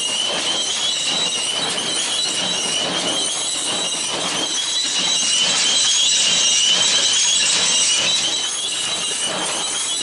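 John Deere 336 square baler running as its pickup gathers hay, with machine noise under a steady high-pitched squeal.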